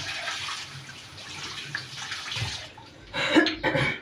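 Kitchen tap running for the first two and a half seconds or so, then two loud, short coughs near the end, as a woman tries to clear a wheezy chest.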